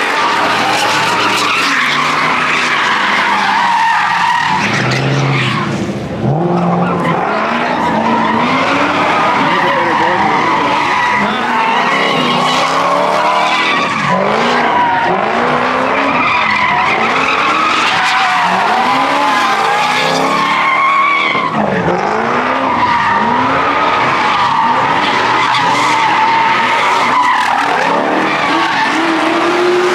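A car doing donuts: its tyres squeal without a break while the engine revs up and down over and over. The sound dips briefly about six seconds in.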